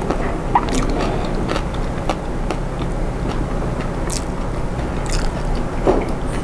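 Close-miked eating sounds: fingers tearing crisp fried catfish apart, giving scattered small crackles and ticks, over a steady low hum.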